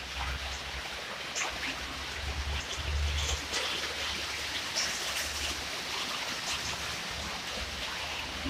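Steady trickling, rain-like water noise with scattered faint ticks, over a patchy low rumble.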